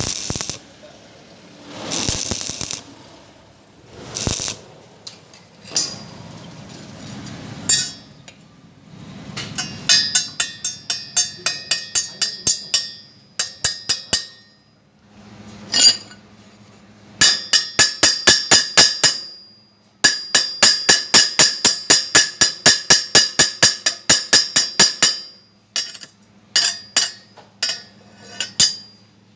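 Steel hammer striking steel, as a chipping hammer knocks slag off a weld bead. A few short noisy strokes come first. Then come runs of quick, ringing metallic taps, about four or five a second, broken by short pauses.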